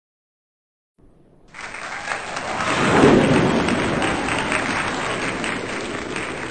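Crowd applause laid in as a sound effect: many hands clapping, coming in about a second and a half in, swelling to a peak soon after and then slowly fading.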